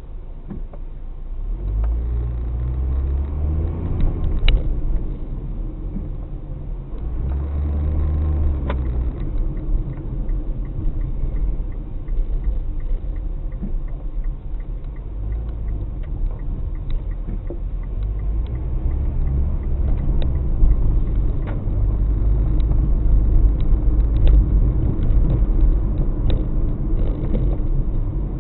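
Car driving, heard from inside the cabin: steady engine and road rumble, with the engine note swelling twice in the first ten seconds.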